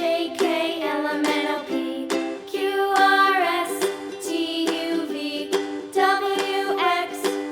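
Light, cheerful background music: strummed plucked strings under a bright, gliding melody.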